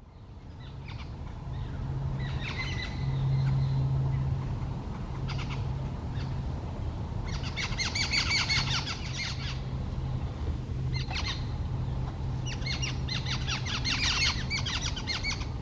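A flock of jungle babblers giving harsh, squeaky chattering calls in several bursts, the longest near the middle and towards the end, over a steady low hum.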